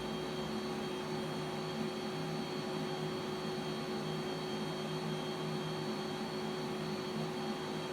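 CNC milling machine running steadily, a constant whine of several steady tones over an even hiss.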